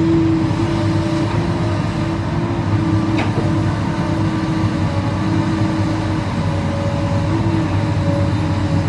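Komatsu PC200 excavator's six-cylinder diesel engine running steadily under digging load, with a steady whine over the low rumble. There is one brief sharp click about three seconds in.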